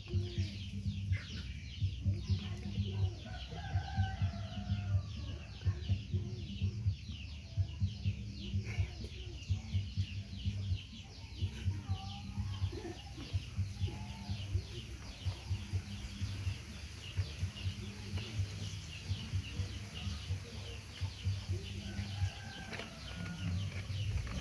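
Chickens clucking now and then over a continuous fast, high chirping in the background.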